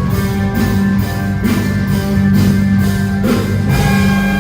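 Rock-band underscore music: a steady drum beat, about two hits a second, under sustained guitar and keyboard chords.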